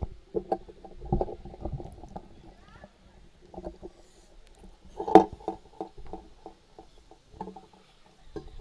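Scattered soft knocks and rustling with faint muffled voices, and one sharper knock about five seconds in.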